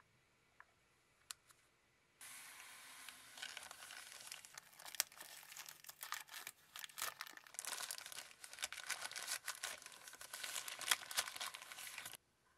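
Plastic wrapping being crinkled and peeled off a handheld gadget: a dense crackling with many sharp snaps. It starts suddenly about two seconds in and cuts off abruptly near the end, after a few faint clicks of handling.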